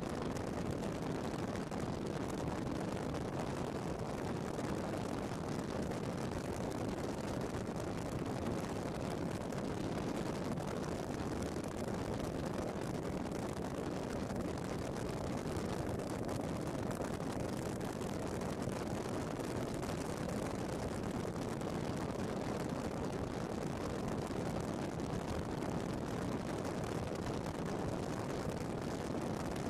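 Steady wind rush and engine noise of an Indian Chieftain V-twin motorcycle cruising at a constant speed, heard from a camera mounted on the bike with wind buffeting the microphone.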